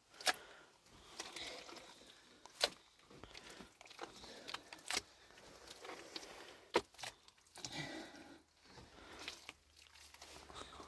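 Four sharp clicks or knocks, about two seconds apart, over faint rustling and handling noise.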